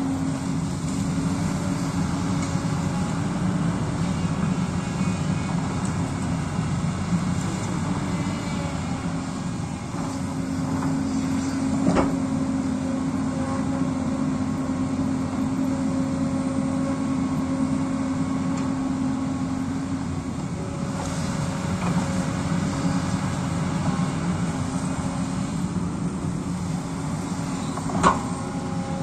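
Hyundai 220-class crawler excavator running steadily under load as it digs, its diesel engine and hydraulics holding a constant hum with a whine that comes and goes. Two sharp knocks stand out, about twelve seconds in and again near the end.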